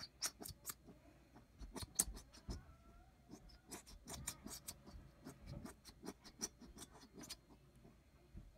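A plastic bottle of Elmer's glue being squeezed: a string of irregular sharp clicks and crackles from the plastic bottle, stopping near the end.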